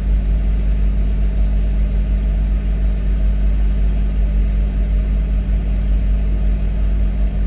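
Toyota Land Cruiser Prado engine idling steadily, heard from inside the cabin: a low, even hum that does not rise or fall.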